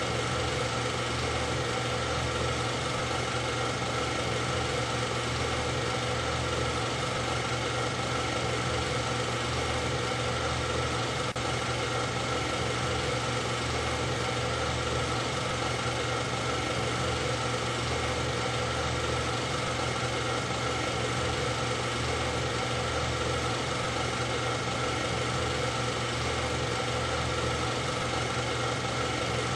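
A steady, unchanging mechanical hum that holds one level throughout, with no rise or fall.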